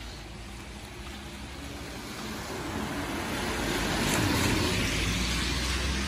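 A vehicle passing on a rain-wet road: tyre hiss on the wet asphalt swells to a peak about four seconds in and then fades, over a low engine hum.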